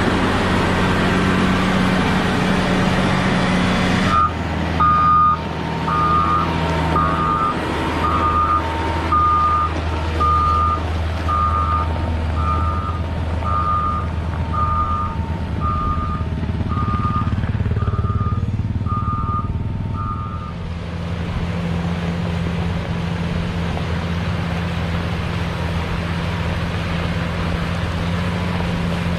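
Caterpillar 120 motor grader's diesel engine running steadily under load. From about four seconds in, its reversing alarm beeps about once a second, stopping about two-thirds of the way through.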